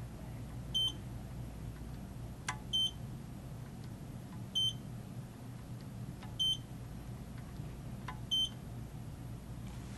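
Five short high-pitched electronic beeps, about two seconds apart, from the torque screwdriver's signal as it reaches its set torque on each tightening. A faint click comes just before the second and the fifth beep.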